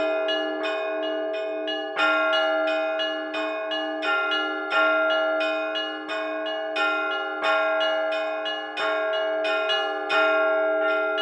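Russian Orthodox church bells rung by hand in a simple peal: two of the heavier middle bells (podzvonnye) repeat a simple melody over quicker strikes of smaller bells, with a louder accented strike about every second and a half and all the bells ringing on into each other. Ringing to call to the evening service.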